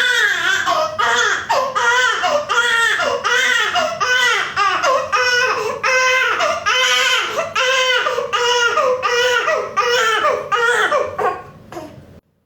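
Baby crying hard in quick, repeated wails, about one and a half a second, fading out near the end.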